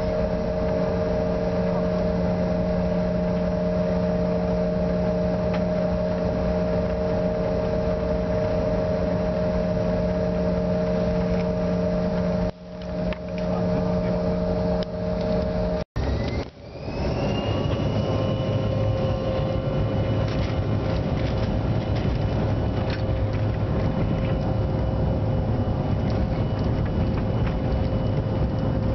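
Cabin sound of a CRJ-700's General Electric CF34 turbofan engines: a steady whine while taxiing. About halfway through, after a brief dropout, a rising whine as the engines spool up for the take-off roll, settling into a steady high whine over a rumble.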